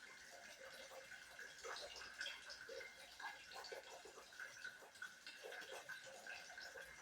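Near silence: faint room tone with a steady, faint high-pitched hum and scattered light ticks.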